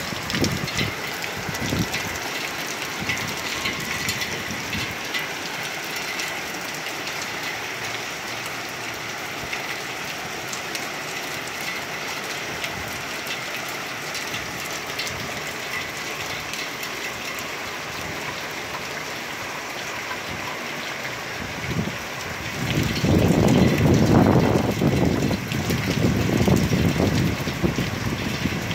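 Steady heavy rain falling on a street, lawns and parked cars. For the last several seconds a louder low rumble rises under the rain.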